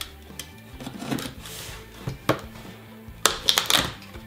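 Utility knife scoring and slicing through a small cardboard box, with scattered scrapes and clicks, then a loud burst of cardboard crackling a little past three seconds in as the flaps are pulled open.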